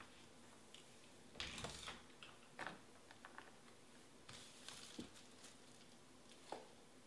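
Faint scattered small clicks and two short rustling hisses, about a second and a half in and again after four seconds, over low room tone.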